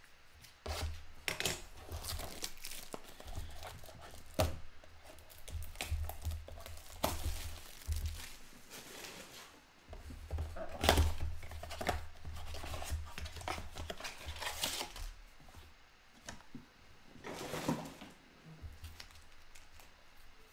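A sealed cardboard box of basketball trading cards being unwrapped and opened by hand: plastic wrap crinkling and tearing, cardboard flaps, and foil card packs rustling as they are pulled out and laid down, with scattered knocks and thuds of handling.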